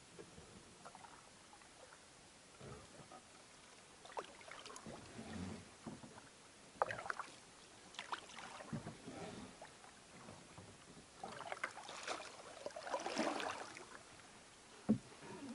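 Canoe paddle strokes: the blade dipping and pulling through calm water with splashes and drips, uneven and thickest toward the end, plus a couple of sharp knocks.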